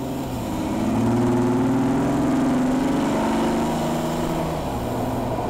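Car engine running under way with road noise, heard from inside the cabin; the engine note fades in, climbs over the first couple of seconds, then eases lower.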